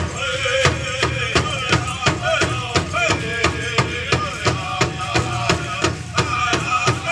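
Powwow drum and singers: the drum is struck in a steady even beat, about three strikes a second, under the singers' wavering voices.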